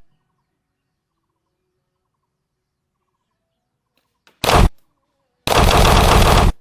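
Two bursts of rapid automatic gunfire: a short one about four and a half seconds in, then a longer one of about a second near the end, with near silence before them.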